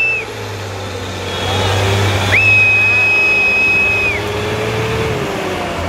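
Tractor engine running steadily, its note rising slightly and then easing off, while a long, shrill, single-pitch whistle sounds for nearly two seconds near the middle.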